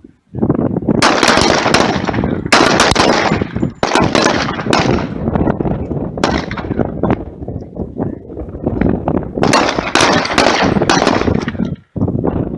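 Many pistols firing rapidly and overlapping from several shooters on a firing line, shooting at pop-up targets. The shooting starts suddenly a moment in and breaks off very briefly near the end.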